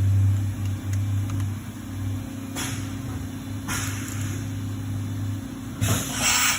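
YCM NXV560A CNC vertical mill running with a steady low hum while its tool changer cycles, with short hissing bursts about two and a half, four and six seconds in.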